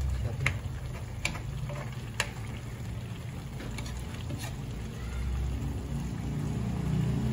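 Metal spoon clinking a few times against the rim and sides of a pan while stirring chicken soup, mostly in the first half, over a steady low rumble.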